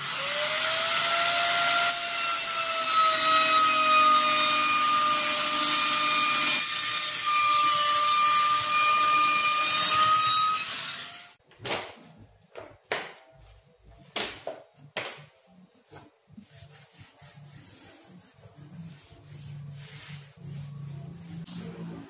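A small high-speed electric power tool spins up and runs with a steady high whine, its pitch sagging slightly under load, and stops about eleven seconds in. After it, a run of short irregular rubbing strokes, as of a sanding block on the laminate edge, then quieter handling.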